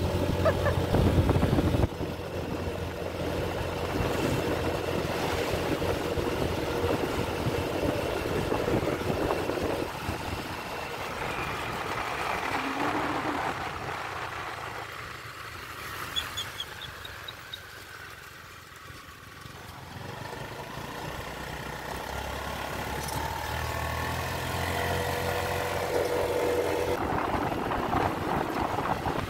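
Motor vehicle running, its engine and road noise swelling and fading, quietest about eighteen seconds in.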